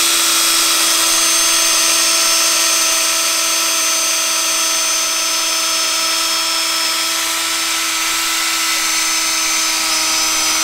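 DeWalt 20V cordless drill spinning a foam polishing pad against a headlight lens, buffing in the polish after sanding; the motor runs at a steady speed with an even whine.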